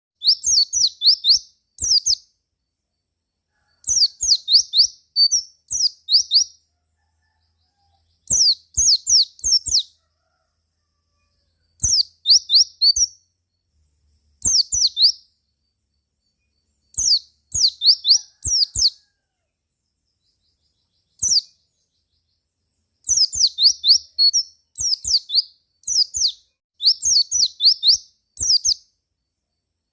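White-eye (pleci) chirping in short bursts of quick, high, downward-sliding notes, with the bursts coming every few seconds and silence between them.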